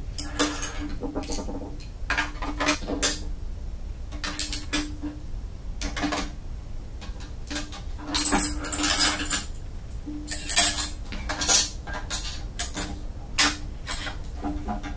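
Metal hand tools (screwdrivers, pliers, a hex key set) clinking and clattering as they are packed into a small metal toolbox: irregular knocks and rattles, loudest about eight to twelve seconds in.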